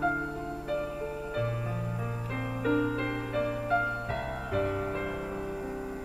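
Background music: a slow piano melody over held bass notes.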